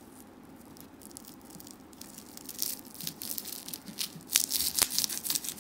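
Plastic wrap around a trading card crinkling and crackling as a knife blade slits and works it open. It is quiet at first, then the crinkling picks up about halfway through and is loudest near the end.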